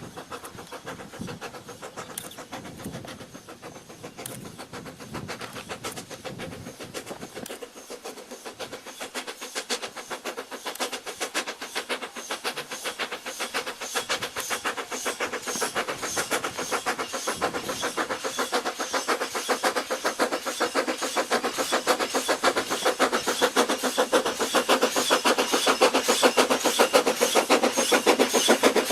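C2 narrow-gauge steam locomotive working, its exhaust chuffing in a fast, even rhythm that grows steadily louder as it draws nearer.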